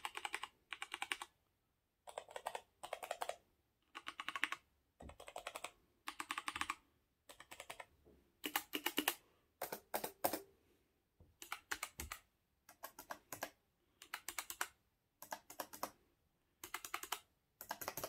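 Typing on two mechanical keyboards for a sound comparison: a HyperX Alloy FPS Pro with linear Cherry MX Red switches and a Logitech G413 with Romer-G switches. The keys are struck in short, quick runs of clicks, roughly one run a second, with brief pauses between them.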